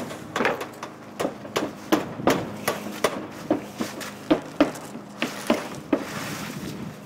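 Hand hammer driving nails into plywood roof decking: a string of sharp knocks, about two a second, some louder than others.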